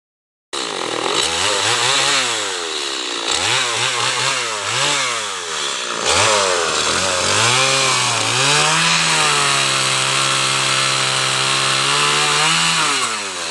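Stihl MS180 two-stroke chainsaw revving up and down several times, then held at high revs for about four seconds before easing off near the end.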